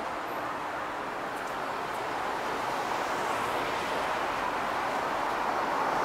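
Street traffic noise: a steady rush of passing cars, growing a little louder toward the end as a car approaches.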